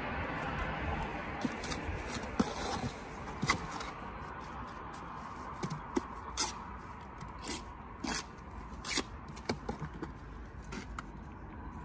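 Steel bricklaying trowel scraping and knocking against a brick and mortar as the brick is buttered: a scatter of short, sharp clicks and scrapes.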